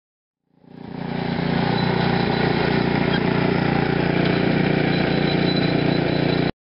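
Small petrol engine of a walk-behind hollow-tine lawn aerator running steadily. It fades in over about a second and cuts off suddenly near the end.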